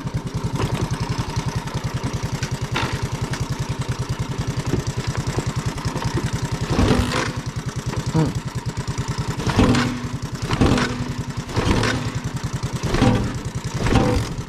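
A small single-cylinder ATV engine idles with an even, rapid pulse. In the second half it gives about seven short louder bursts, roughly one a second.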